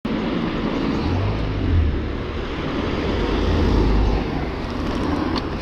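Steady wind and road noise while riding a bicycle through traffic, with the low rumble of a large vehicle passing close by in the middle.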